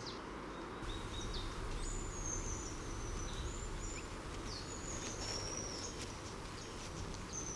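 Open-air nature ambience: a steady soft hiss with scattered short, high, thin chirps.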